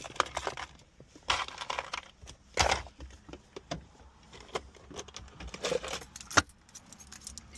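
A bunch of keys jangling and clinking, with scattered clicks and knocks, the sharpest a little over six seconds in.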